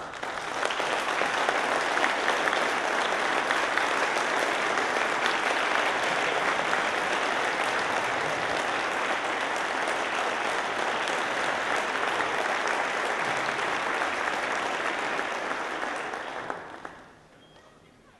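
Concert audience applauding, starting at once, holding steady for about sixteen seconds, then dying away about a second before the end.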